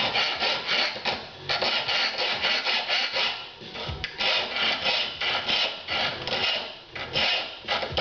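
Small hand file rasping back and forth over a small metal part held in the hand: quick scratchy strokes, about three or four a second, in runs broken by brief pauses.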